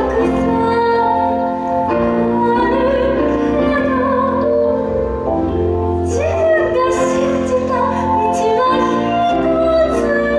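A woman singing a slow song in a classical, operatic style over instrumental accompaniment, holding notes with vibrato.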